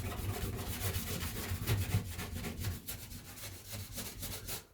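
Hand scrubbing and rubbing a surface clean, a fast run of scratchy back-and-forth strokes that tails off near the end.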